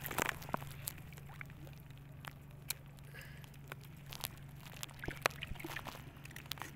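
Quiet crab gathering on a wet tidal flat at night: scattered small clicks and taps with light squelches, over a low steady hum.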